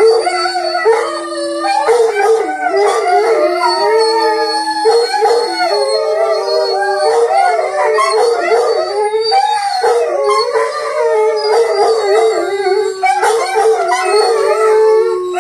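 Several dogs, a Rhodesian Ridgeback among them, howling together as a pack: long overlapping howls at different pitches, held and wavering, without a break.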